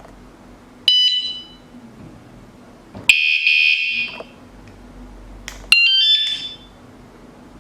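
Electronic bike alarm sounding three loud, high-pitched bursts: a short one about a second in, a longer one about three seconds in, and another about six seconds in. A faint steady hum is heard between the bursts.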